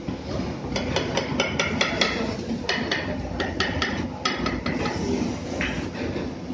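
Metal spatula clacking rapidly against a steel griddle or counter, a quick run of sharp ringing strikes with a short break, stopping about two-thirds of the way through. Under it is a steady low rumble.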